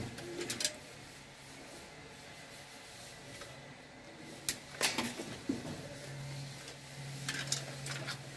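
Sharp small plastic clicks and snaps as the wires of a network cable are pressed into a keystone jack with a hand termination tool: one short group near the start, a cluster about halfway through, and more near the end. A low steady hum comes in about six seconds in.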